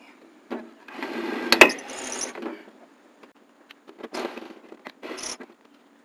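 Handling noise from work on a rooftop air conditioner: rubbing, rustling and clattering of tools and parts in short stretches, with one sharp knock about a second and a half in.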